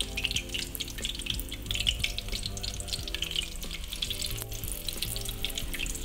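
Ring-shaped fritters of grated cassava deep-frying in hot oil in a wok: a steady, dense crackling sizzle.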